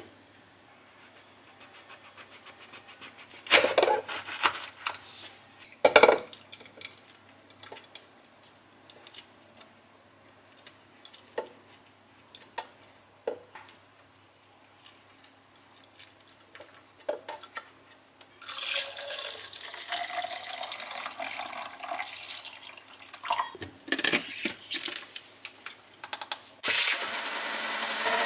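Kitchen work: a few scattered knocks and clicks, then water running steadily for about four seconds, as from a tap filling a container. Near the end a second steady running sound starts.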